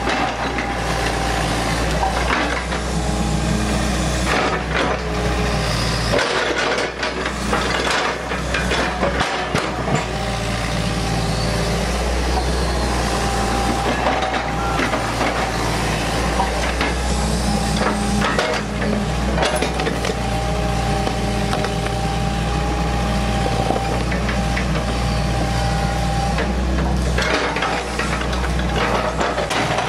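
Hitachi EX100 tracked excavator's diesel engine and hydraulics running under load, with a steady whine. Irregular knocks and scrapes come as the grab attachment swings and digs into the ground.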